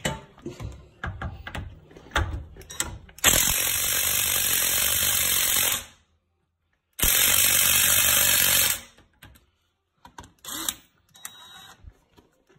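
Cordless ratchet running in two spells of about two and a half and two seconds, undoing a bolt on a car's brake caliper, with clicks and knocks from handling the tool before and after.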